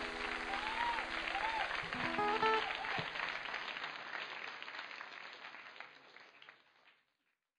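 Last strummed chord of an acoustic guitar rings away as an audience applauds, with a few cheers; the applause fades out near the end.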